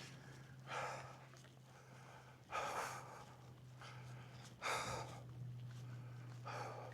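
A hiker's breathing close to the microphone: four breaths about two seconds apart, over a faint steady low hum.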